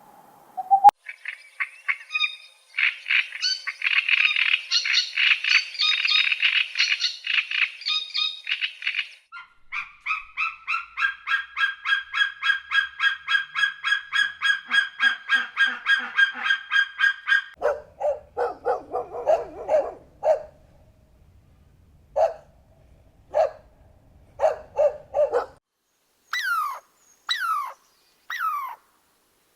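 A run of different bird calls, goose-like fowl first: a dense chorus of calls, then a long even series of about four calls a second, then lower calls in short groups, and near the end four falling whistled calls.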